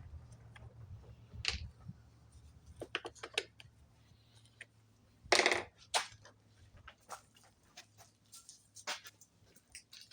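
Scattered small metallic clicks and clinks of a screwdriver and screws as the top plate of a Stihl TS420 concrete saw is unscrewed, with one louder ringing clink a little past halfway. A steady low hum runs underneath.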